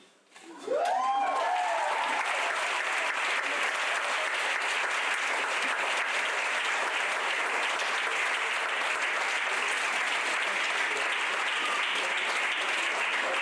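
An audience bursts into applause about half a second in and keeps clapping steadily, with a few whoops and cheers as it starts.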